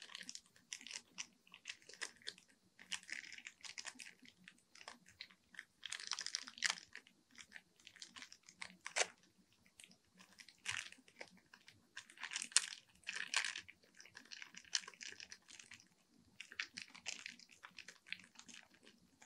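Thin clear plastic wrapping crinkling and crackling in irregular bursts as two pens are handled and one is pulled out of its wrapper.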